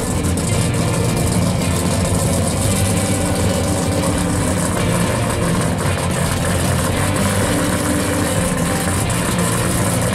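Pro street 1970 Plymouth 'Cuda's V8 running at low revs, steady and without big revs, as the car rolls slowly away.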